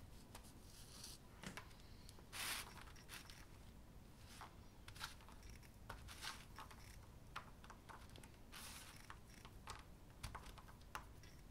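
Faint, scattered crisp crackles and rustles of ground chocolate wafer strands being pulled from the grinder plate and handled between fingers on a plastic tray, with a slightly longer rustle about two and a half seconds in.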